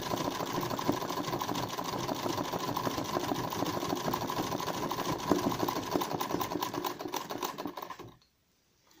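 Black straight-stitch sewing machine running fast in free-motion embroidery, a steady rapid needle clatter that winds down and stops near the end.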